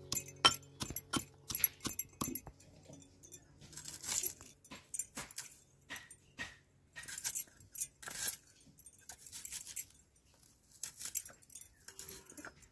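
Metal pestle pounding garlic in a metal mortar: quick, sharp clinks with a metallic ring for the first two or three seconds. Then dry, papery crackling and rustling comes in irregular bursts as an onion is peeled and cut against a blade.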